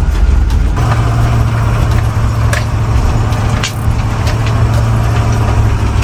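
Converted school-bus motorhome driving, its engine and road noise making a loud steady low rumble, with a few sharp knocks along the way.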